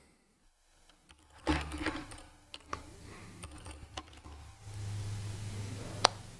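Typing on a computer keyboard: a scattered run of light key clicks, with one sharper, louder click about six seconds in.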